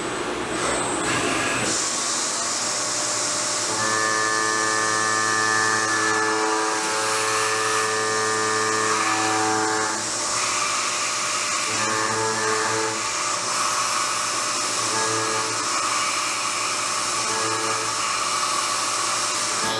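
CNC milling machine's high-speed spindle running an end mill through steel, a steady hiss with a pitched whine. The whine comes in about four seconds in, holds for several seconds, then cuts in and out in short stretches as the cutter engages the work.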